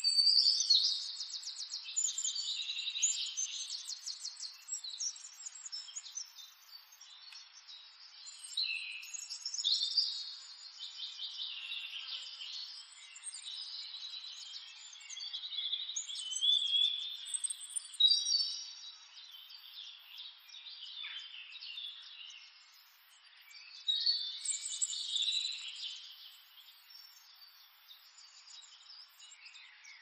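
Small birds chirping and twittering in several bursts, with fast high trills and short rising and falling calls over a faint steady hiss.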